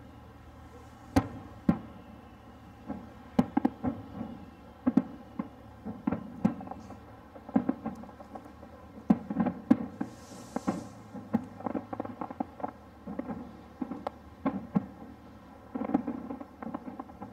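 Fireworks display: aerial shells bursting in an irregular string of bangs and pops, often several a second, with a short hiss about ten seconds in.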